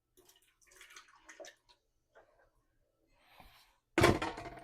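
Heavy cream poured from a measuring cup into a blender jar, a soft trickling splash, followed about four seconds in by a sudden louder knock.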